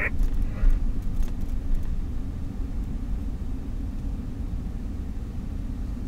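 Car driving slowly in traffic, heard inside the cabin: a steady low rumble of engine and tyre noise.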